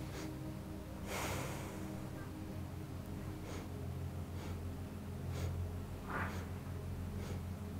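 Short sniffs of breath drawn in through the nose, several seconds apart, with one longer, stronger breath out through the nose about a second in. This is pranayama breathing, the inhalation taken in separate sniffs and the exhalation in one. A low steady hum runs underneath.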